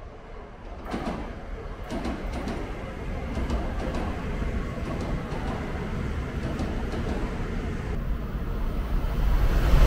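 Tokaido Shinkansen bullet train passing through the station at speed on a far track: a rushing of wheels and air that builds steadily, with a few sharp clicks early on. Right at the end a second Shinkansen rushes in on the near track and the noise jumps much louder.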